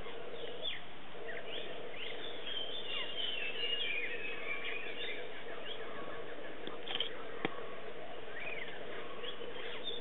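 Several birds chirping and calling in short whistles and chirps over a steady hum, busiest a couple of seconds in. There is a single sharp click about three quarters of the way through.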